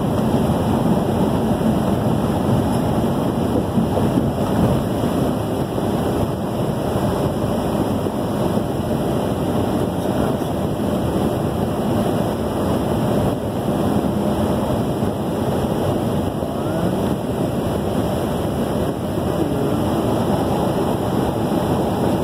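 Steady drone of road and engine noise inside a semi-truck cab cruising at highway speed.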